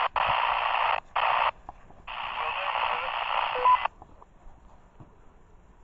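Two-way radio hissing in bursts of static as transmissions are keyed with no clear speech: three bursts that start and stop sharply, the last lasting nearly two seconds.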